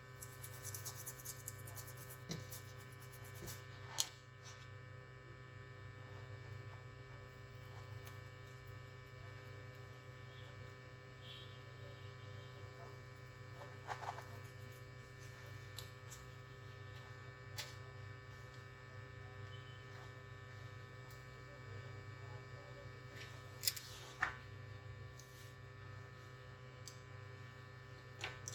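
Faint, steady electrical hum from repair-bench equipment, with a few scattered sharp clicks and taps of tools on the circuit board.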